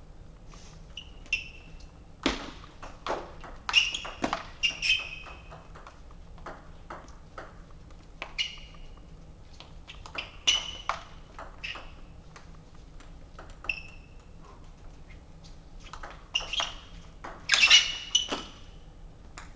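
Table tennis ball clicking off the table and the players' bats in short exchanges of a few hits each, many hits ringing with a short high ping, with pauses between exchanges and a quicker, louder run of hits near the end.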